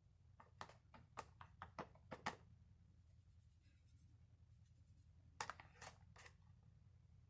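Faint, quick clicks and taps from hands working with small craft materials (chalk pastel, brush, foam squishy): a run of about eight in the first two and a half seconds, then two or three more later, over a low steady hum.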